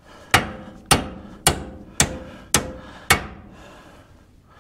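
Hammer striking steel six times, about two blows a second, each with a short metallic ring, driving the kingpin lock pin out of a Ford 550 backhoe's front spindle.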